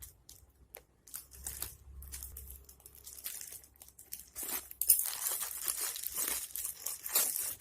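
Parcel packaging being torn open and crinkled by hand: irregular crackling and ripping, sparse at first, then busier and louder about halfway through.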